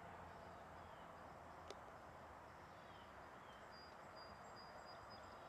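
Near silence: faint outdoor ambience with a few short distant bird chirps, one light click a little under two seconds in, and a thin high note near the end.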